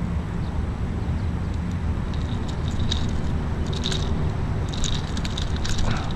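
Clusters of small sharp metallic clicks and scrapes as the hooks of a lure are worked out of a barracuda's jaw by hand, over a steady low rumble.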